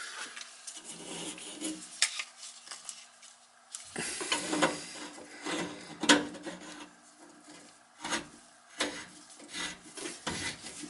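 Irregular rubbing and scraping with scattered sharp clicks from a gloved hand fitting a PVC tailpiece to a kitchen sink basket strainer and hand-threading its slip nut onto the strainer's threads.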